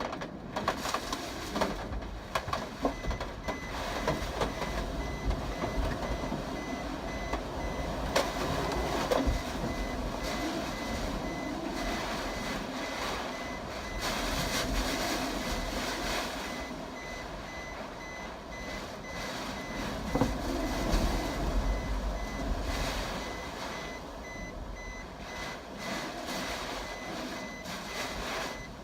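Typhoon wind gusting and buffeting the microphone in a rough, uneven rush. From about three seconds in, a high electronic beeping repeats rapidly and steadily, like a reversing or alarm beeper.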